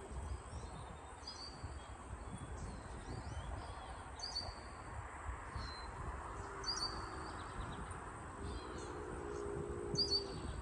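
Outdoor ambience: small birds chirping, short high calls repeated every second or so, over a low steady rumble.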